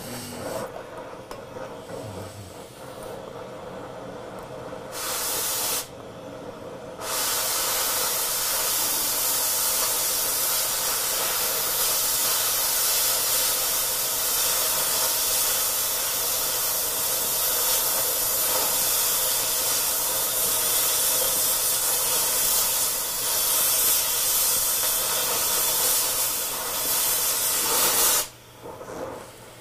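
Oxy-acetylene cutting torch cutting steel. A quieter preheat-flame hiss for the first few seconds and a short blast about five seconds in are followed, about seven seconds in, by the loud steady hiss of the cutting-oxygen jet. That hiss cuts off suddenly near the end, when the oxygen lever is released.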